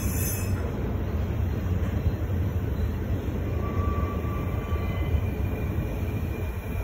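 Double-stack intermodal freight cars rolling past with a steady low rumble of wheels on rail, and a faint thin wheel squeal around the middle.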